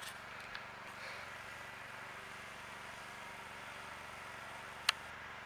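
Quiet outdoor background with a faint steady low hum and one short sharp click near the end.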